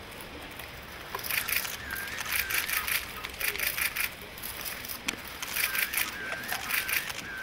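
Press photographers' camera shutters firing in rapid bursts, several volleys of quick clicks, starting about a second in.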